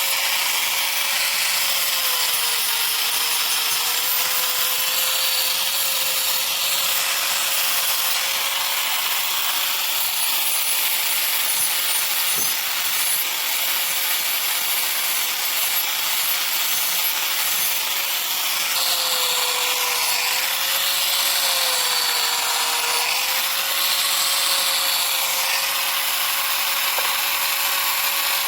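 Electric power tool motor running steadily: a whine over a rushing hiss, its pitch sagging briefly about two seconds in and again about two-thirds of the way through as it is pressed into the work.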